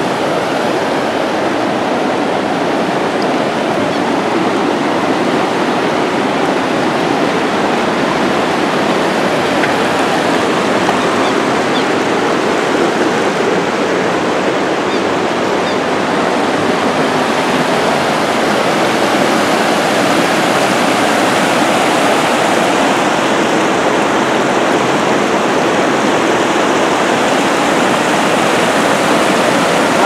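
Waterfall rushing: a loud, steady, unbroken noise of falling water.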